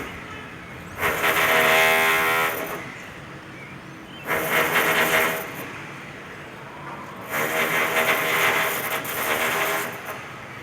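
Electric rotary hammer running in three bursts, the first about a second and a half long, the second about a second and the third about two and a half seconds, with a quieter background between them.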